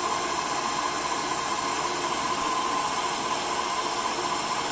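CNC lathe running steadily through a G71 roughing cycle, with an even hiss and a thin steady whine from the spindle drive.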